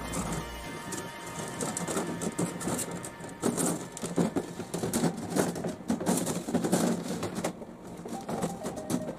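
Soft copper refrigeration tubing being uncoiled and worked through a spring pipe bender on a tabletop: irregular clicks, taps and scrapes of the tube.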